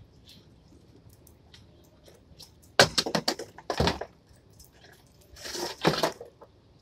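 Muscovy duck pecking and crunching snails right at the microphone: two loud bouts of clicking and crunching, one about three seconds in and one around five and a half seconds, with quiet between.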